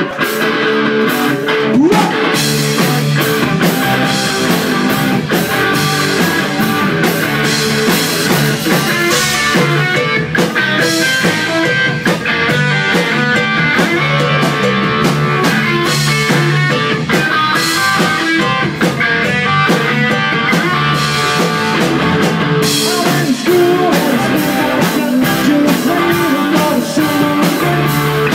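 Live rock and roll band playing: electric guitars over a drum kit, with a steady beat of drum and cymbal hits. The recording is loud and thin, with little deep bass.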